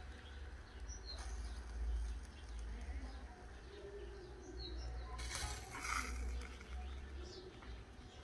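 Serrated bread knife sawing through a burger bun, a short rasp about five seconds in, over a steady low rumble and a few bird chirps.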